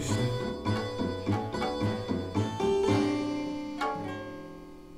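Instrumental background music on a keyboard-like instrument: a run of quick struck notes, then a held note and one more struck note that both die away as the music fades out near the end.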